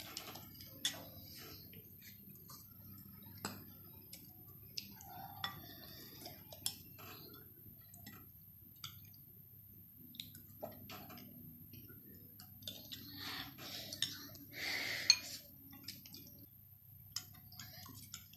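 Metal spoons and forks clinking and scraping against ceramic bowls as people eat, in scattered light taps with a few louder clinks.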